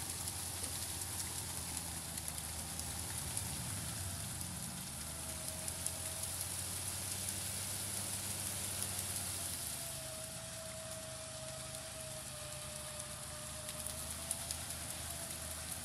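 A Mercedes-Benz G-Class's engine running under load while its wheels churn in mud, heard as a steady low drone under a continuous crackling hiss. A faint whine comes in around five seconds and again from about ten seconds in.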